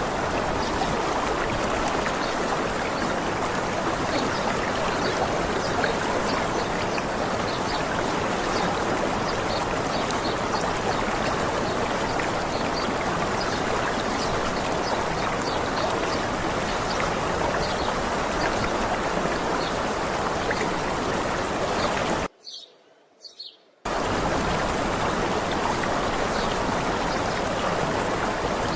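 Steady rush of a waterfall or stream, with faint bird chirps above it. About two-thirds of the way through, the water sound cuts out for about a second and a half, leaving only faint chirps, then comes back.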